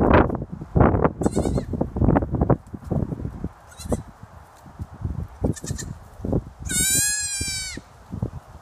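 Kinder goat kids bleating: a couple of short high bleats, then one loud, high bleat about a second long some seven seconds in, dipping in pitch at its end. A run of low thumps and rumbles fills the first few seconds.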